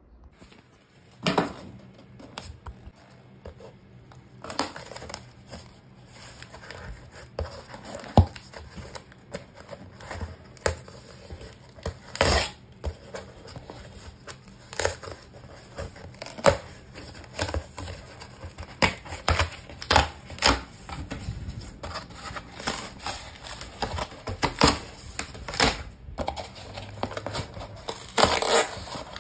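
Corrugated cardboard box being torn open along its perforated tear strip, then its flaps pulled back: irregular tearing, scraping and rustling of cardboard with sharp clicks and knocks, starting about a second in.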